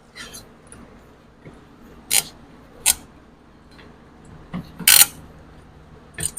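Sheet-metal brake pad clips being pried off a caliper bracket: about half a dozen short metallic clicks and scrapes, the loudest and longest about five seconds in.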